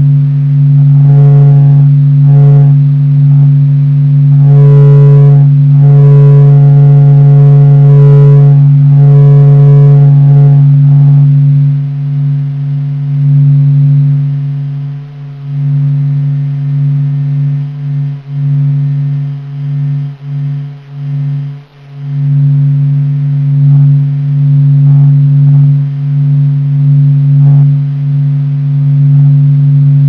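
NASA's sonified recording of the Sun's surface oscillations: a steady low hum with a fainter, higher hum above it. From about one to eleven seconds in, higher ringing tones come and go over it, and between about fifteen and twenty-two seconds the hum wavers and drops in and out.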